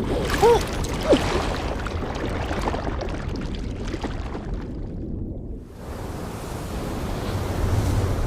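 Rushing wind and water noise, as of a fall from a cliff into a river, with a few short wavering pitched cries in the first second. The hiss drops away for a moment about five seconds in, then the rush returns with a deeper rumble.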